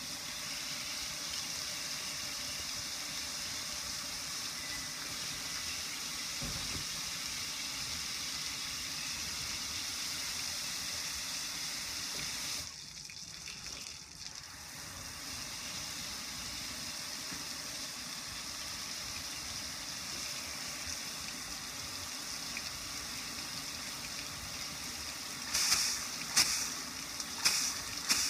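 Hose spray nozzle spraying water onto a gas grill's metal lid and panel: a steady hiss of spray and splashing. It drops away briefly about halfway, and several short, louder bursts come near the end.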